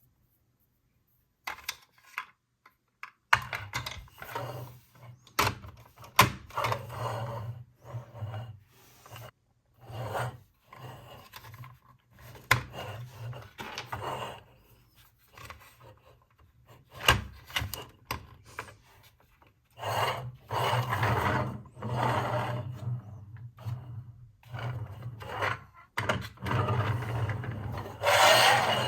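Close-up rubbing and scraping from hands handling toys and materials, in irregular stretches broken by sharp clicks and taps, over a low steady hum.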